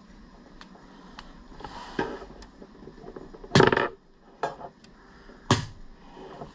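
Spring-loaded spike launcher fired at cloth-covered ballistic gelatin: light clicks and knocks from handling, then two loud sharp snaps about two seconds apart. The spike fails to penetrate the cloth and ends up on the wooden bench.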